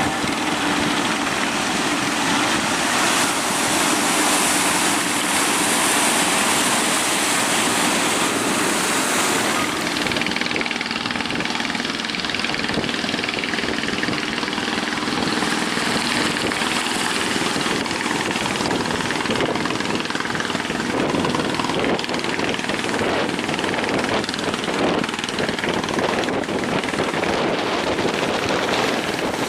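A boat engine running steadily under a constant rush of surf and wind.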